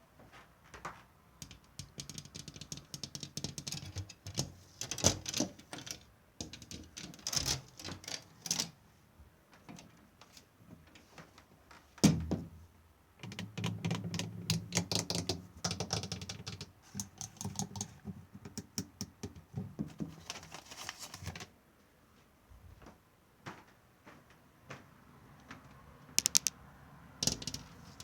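ASMR tapping trigger: rapid clicking taps in bursts lasting a few seconds, separated by short pauses, with one sharp knock about twelve seconds in.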